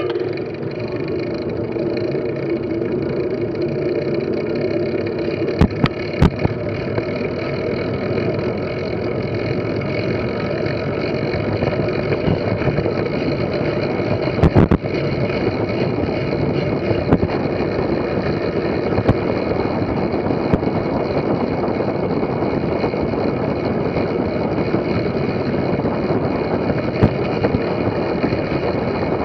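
Fixed-gear track bike rolling at speed on a wooden velodrome track: a steady rush of wind on the microphone with the hum of tyres on the boards. A few sharp knocks come about six seconds in and again about fifteen seconds in.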